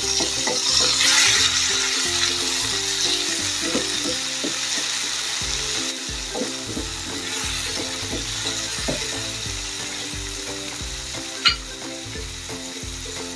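Minced chicken, chopped tomato and garlic sizzling in a frying pan while being stirred with a spatula, the sizzle slowly growing quieter. A single sharp click near the end.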